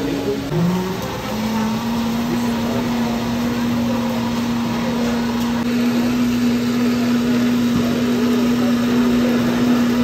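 A machine running with a steady hum, its pitch rising briefly about a second in and then holding.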